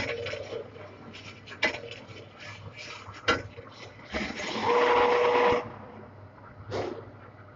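Lathe turning a large steel pipe: a couple of sharp knocks, then a loud cutting noise with a steady whine for about a second and a half, and a short burst near the end.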